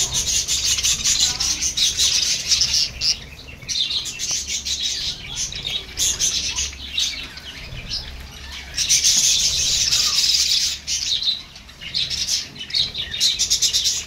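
A flock of budgerigars chattering together: dense, rapid twittering and warbling from many birds at once, thinning briefly a few times.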